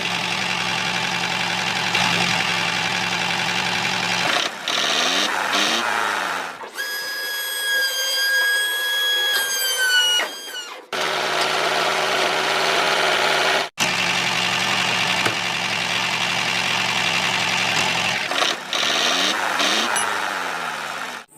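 A motor running steadily, with a high-pitched whine for a few seconds in the middle that drops in pitch before it stops. It cuts off abruptly, then the running sound starts again.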